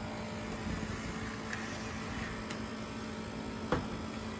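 Steady mechanical hum and water-pump noise from aquarium equipment running, with one short click about three-quarters of the way through.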